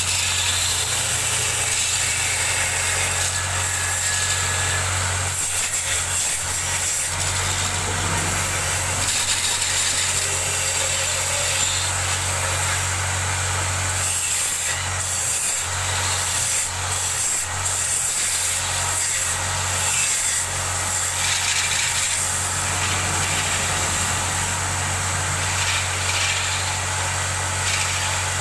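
Custom wood lathe running with a steady low hum while a turning tool cuts the spinning wood, giving a continuous hissing scrape. The hum falters and breaks up briefly a few times in the middle.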